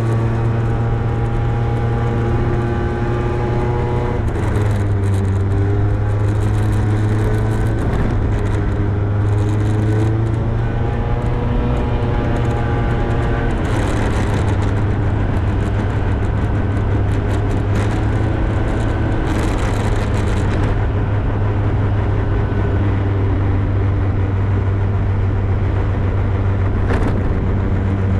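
Motorbike engine running while riding along, its note rising and falling several times with the throttle, over a steady rush of wind and road noise.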